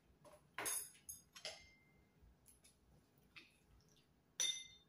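Metal spoon and fork clinking and tapping against a plate and bowl while eating: a few scattered clinks, some with a brief ringing tone, the loudest near the end.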